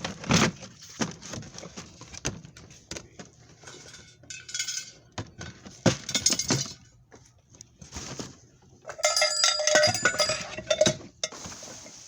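Small hard objects clinking and knocking as a box of odds and ends is rummaged through, with a cluster of ringing clinks about nine seconds in.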